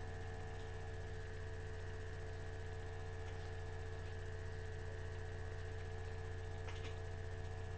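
Steady low electrical hum and hiss of the microphone's background, with a few faint steady tones. One faint click sounds near the end.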